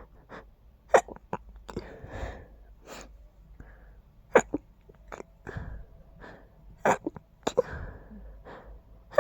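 A person's quiet, stifled sneezes: about four short, sharp held-in bursts, with breathy inhales building up between them.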